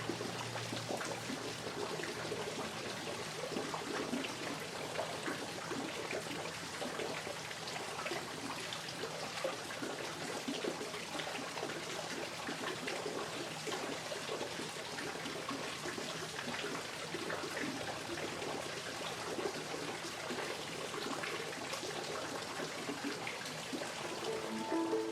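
Running water trickling steadily, an even splashing hiss.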